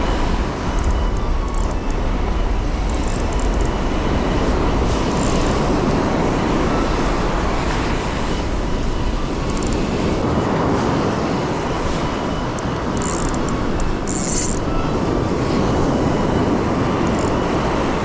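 Steady rushing noise of wind buffeting the microphone over breaking surf, with a few brief high ticks near the end.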